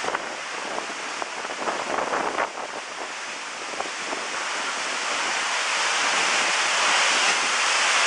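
Waterfall: falling water rushing steadily, growing louder over the last few seconds, with a few light clicks about two seconds in.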